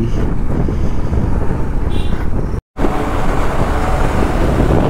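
Wind rushing over the microphone and road noise from a motorcycle under way. The sound cuts out completely for a split second a little past halfway, then comes back with more hiss.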